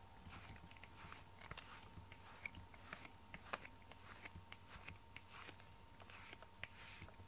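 Faint, irregular scratchy strokes and small clicks of a grooming brush being worked through a cat's fur.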